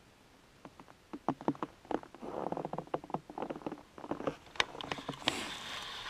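Footsteps crunching and squeaking in deep-frozen snow at about −22 °C, in irregular clusters of short crackles. Near the end a louder rustle comes in.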